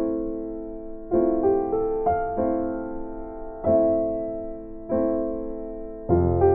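Background piano music: slow chords, each struck and left to fade, about one a second.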